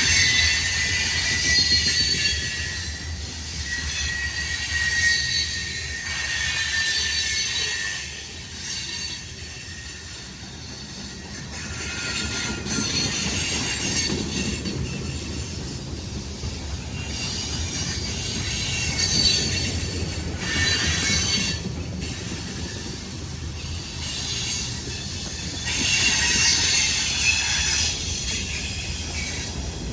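Freight train rolling past, its wheels squealing on the rail: a thin high squeal in the first several seconds that slowly sinks in pitch, then recurring high scraping squeals that swell and fade over a steady low rumble.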